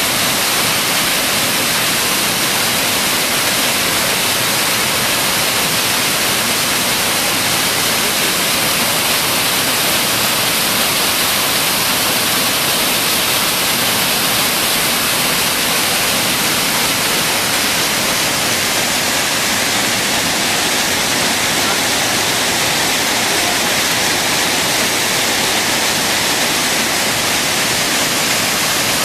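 Mountain creek cascading as white water through a narrow rock gorge: a loud, steady rushing with a strong hiss.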